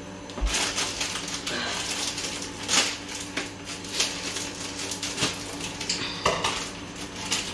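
Irregular clinks, knocks and clatter of kitchen items being handled.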